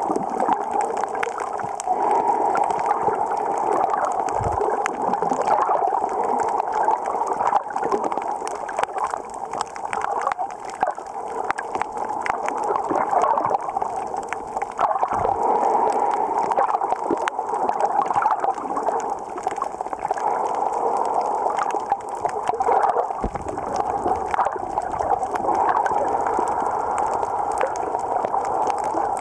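Underwater sound picked up by a camera in its waterproof housing: a steady, muffled water rush with many fine crackling clicks, and a few dull low bumps.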